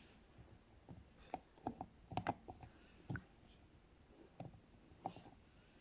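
Faint, scattered light clicks and taps of small objects being handled on a work surface, about nine in all, several close together in the first couple of seconds.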